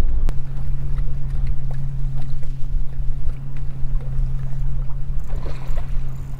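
A boat motor starts with a click just after the start and hums steadily at one low pitch, over a constant low rumble of wind and water around the hull.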